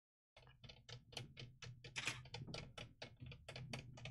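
A rapid, fairly even run of faint small clicks, about six a second, starting about half a second in: hands working on the plastic underside of a Sony VAIO laptop as it is being put back together.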